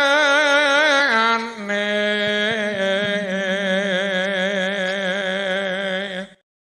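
A solo voice sings one long held note with a wide, wavering vibrato. It slides down to a lower pitch about a second in, holds there, and stops abruptly a little after six seconds.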